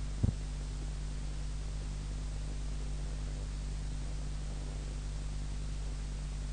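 Steady hiss and low hum of a speech recording's background noise, with one brief low thump about a quarter of a second in.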